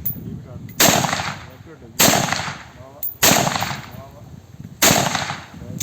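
Pistol shots: four single shots about one to one and a half seconds apart, each sharp crack trailing off in an echo.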